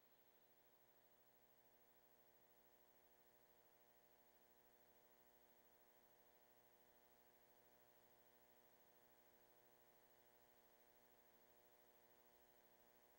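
Near silence with only a faint steady hum.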